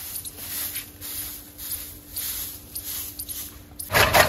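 Short dry swishes of a broom sweeping a hard floor, a few strokes a second. About four seconds in, an electric chaff cutter starts up loud, its blades chopping green fodder in a fast, even clatter.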